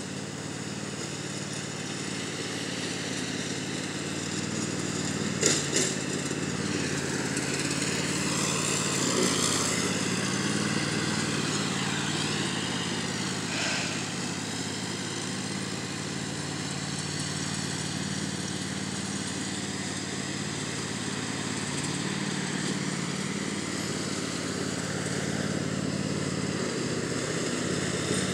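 Riding lawn mower's engine running steadily as it mows, a little louder about a third of the way in. A short knock sounds a few seconds in.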